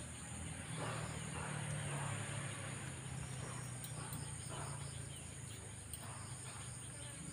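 Insects buzzing in a steady, high-pitched chorus, with a low steady hum underneath.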